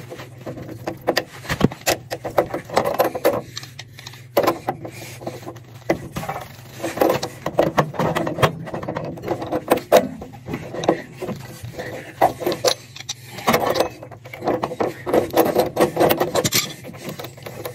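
Pliers clicking, scraping and rattling on a gas water heater's drain valve as it is worked, in irregular bursts of metallic clinks over a steady low hum.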